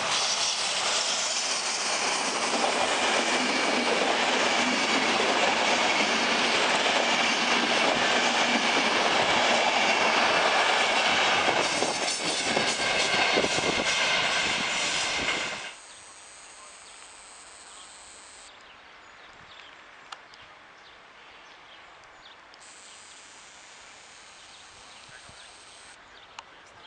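Intercity passenger train passing through a station at speed: a loud, steady rush of wheels on rail with some clattering near the end of the pass. It cuts off abruptly about fifteen seconds in, leaving faint background noise with a couple of small clicks.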